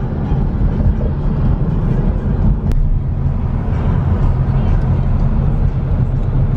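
Car driving at speed: steady engine and road rumble, with a single faint click partway through.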